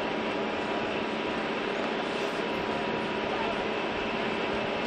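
Steady aircraft engine drone, a constant dense noise with several unchanging whining tones in it, with indistinct voices mixed in.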